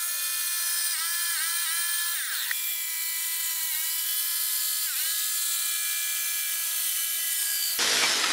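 Small high-speed rotary tool running with a high whine, its pitch dipping briefly several times, then a harsh noisy rasp near the end.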